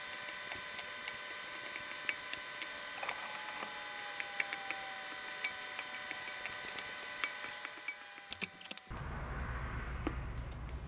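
Grapes dropped one by one onto a paper-towel-covered counter, making light, irregular taps over a steady high hum. About nine seconds in, this gives way to a low, rumbling room noise.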